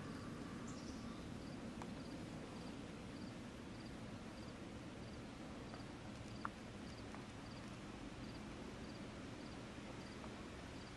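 Faint cricket chirping: a short, high pulsed chirp repeating evenly about every two-thirds of a second over a low, steady background noise. A single sharp click comes about six and a half seconds in.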